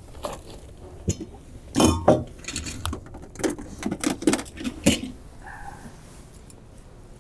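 Objects being handled on a table: a run of sharp knocks and clinks, loudest about two seconds in and again near five seconds.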